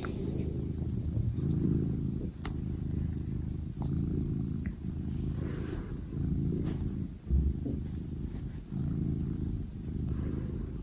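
Domestic cat purring steadily at close range, the rumble pulsing with each in- and out-breath about once a second.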